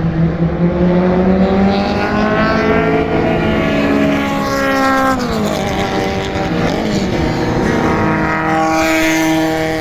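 Touring race cars passing at full throttle, their engine notes climbing in pitch. About five seconds in, the pitch falls sharply, then another engine note climbs again near the end.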